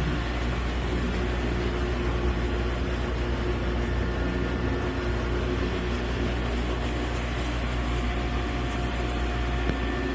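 Steady mechanical hum and whir with a few steady tones, from running commercial kitchen equipment.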